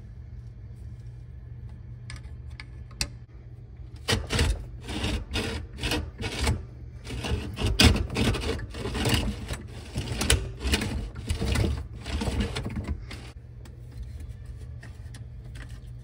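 Self-service hex key being worked back and forth in the socket on the underside of a garbage disposal to free the jammed grinding plate: a run of irregular metal clicks and scrapes, about two a second, starting about four seconds in and stopping a few seconds before the end.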